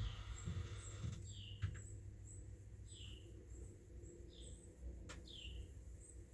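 A bird repeating a short, falling chirp four times, about every second and a half, with a couple of faint sharp clicks between the calls.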